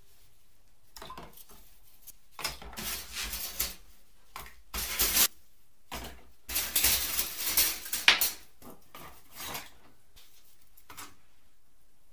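Thin rusty steel plates clinking and clattering against one another as they are handled, in several separate bursts.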